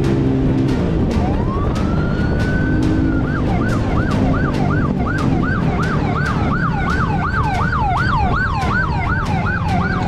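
Police car siren: a wail rises about a second in and holds, then switches to a fast yelp sweeping up and down about two to three times a second. Underneath is the steady rumble of the dirt bike's engine and wind noise.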